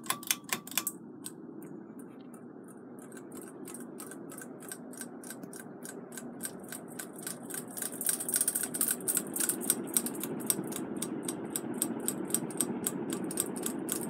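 King of Fans PC52 ceiling fan spinning up to high speed, with a steady rush of motor and blade noise. Over it, the pull chains clack rapidly against the glass light globe, the clacks coming quicker and louder from about halfway through as the fan gains speed.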